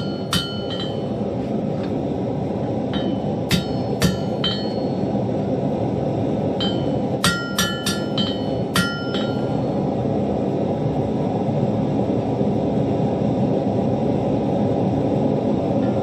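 Hammer blows on hot steel at an anvil, each strike leaving a bright metallic ring; the anvil rings freely because it is not yet properly remounted. About a dozen blows come in short clusters over the first nine seconds, then stop, over a steady low rushing noise.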